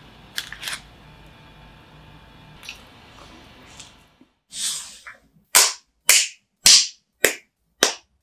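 A bar of chocolate being snapped into pieces by hand. About halfway in begins a run of sharp, separate cracks roughly half a second apart. Before that there are only a few faint clicks over a low hum.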